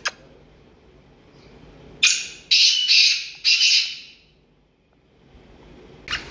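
Male black francolin calling: four harsh, rasping notes in quick succession about two seconds in. A sharp double click comes at the very start, and a rapid run of short ticks begins near the end.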